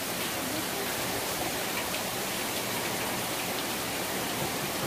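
Torrential hurricane rain pouring down in a steady hiss, with runoff streaming off a roof edge close by.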